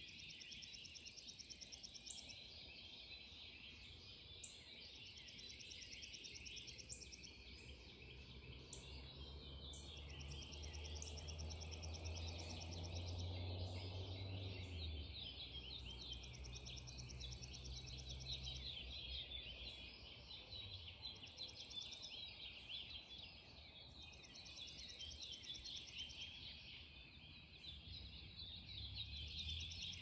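Early-morning chorus of many songbirds calling and singing at once, with a low distant rumble that swells in the middle and fades away.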